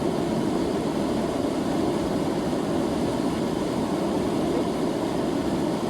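River water flowing and rushing, a steady even noise with no pauses.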